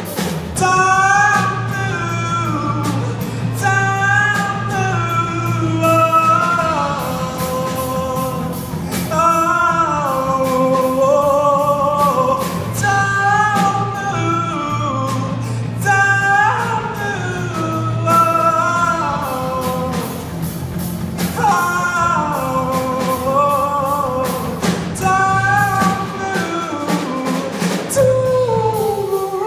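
Live rock band playing: a sung melody over acoustic and electric guitars, bass guitar and drums.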